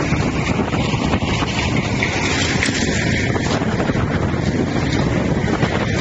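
Tub grinder with its drum screener running, grinding stumps and roots, making a steady, loud mechanical noise.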